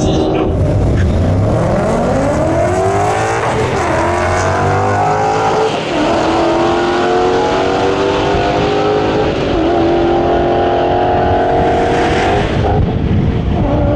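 Two Ford Mustangs accelerating at full throttle on a drag strip. The engine pitch climbs, drops sharply at each upshift (about three shifts), then cuts off near the end as they lift after the finish.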